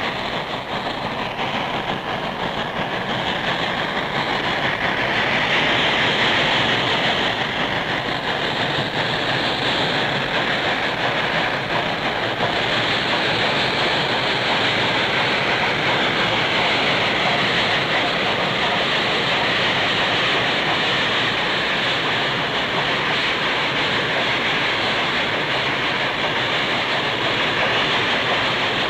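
Norfolk & Western steam locomotive running along the track with its train, a steady wash of noise that grows louder over the first five seconds or so and then holds.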